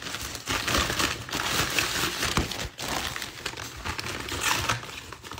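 Packaging crinkling and rustling as a parcel is pulled open and its wrapped contents unfolded by hand, in a run of irregular rustles that eases off near the end.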